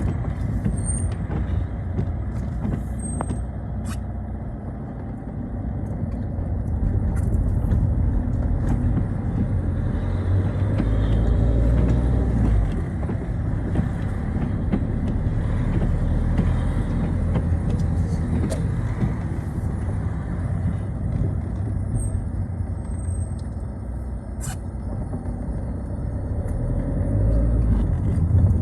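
Citroën Xsara driving on a wet road: a steady low engine rumble with tyre and road noise, swelling twice as the car pulls away or accelerates.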